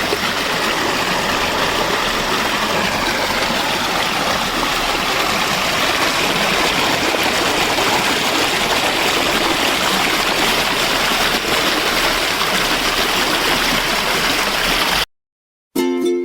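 Stream water rushing steadily, loud and even, until it cuts off abruptly about 15 seconds in; plucked-string music starts right at the end.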